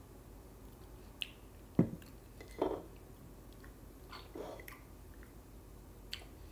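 A person tasting a sip of stout in the mouth: a swallow and a few wet lip-smacks and mouth clicks, spaced out over several seconds.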